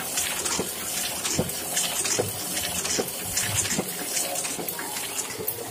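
Heidelberg GTO52 offset printing press running and feeding sheets: a steady mechanical rush with a regular click roughly every 0.8 seconds.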